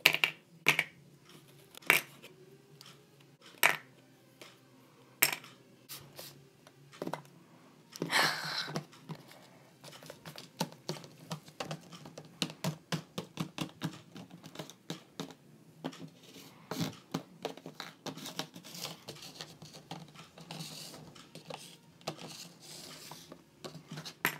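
Small plastic toy pieces clicking and tapping as they are handled, set down on a tabletop and dropped into a small plastic bin. A few separate louder clicks come first, a brief rustle about eight seconds in, then a long run of quick small taps.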